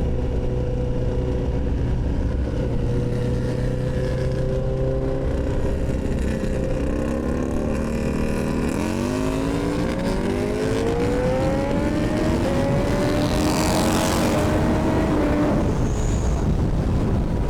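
A vehicle engine running at a steady pitch, then accelerating hard about nine seconds in, its pitch climbing over several seconds, with a rush of wind noise near the top.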